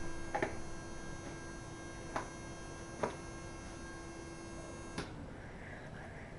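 Six-coil EM Rife machine running, giving a steady electrical hum with a thin high whine above it and a few faint clicks. The hum cuts off suddenly with a click about five seconds in.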